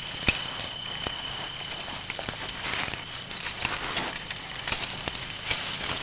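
Scuffling of two desert monitor lizards grappling on sand among dry twigs: irregular rustling and crackling with scattered sharp clicks. A thin steady high tone sounds underneath for the first couple of seconds.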